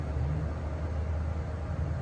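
Low, steady rumble of an approaching Amtrak P42 diesel locomotive, before its horn sounds.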